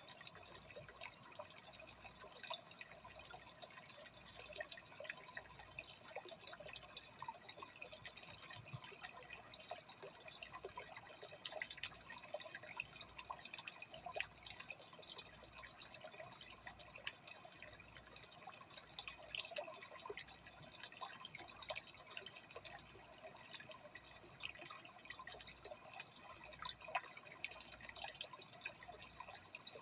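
Faint water trickling and bubbling in a freshwater aquarium: a steady patter of small drips and pops.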